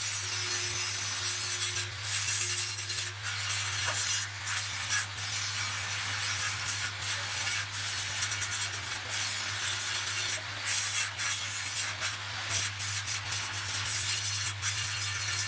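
Steady metalworking noise in a truck repair workshop: a continuous hissing crackle over a low electrical hum.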